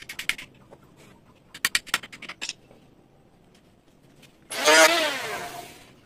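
Wooden-handled hammer driving nails into wooden battens: a quick run of blows at the start and another about one and a half seconds in. Then a loud motor vehicle engine revving, its pitch wavering and dropping as it fades over about a second and a half.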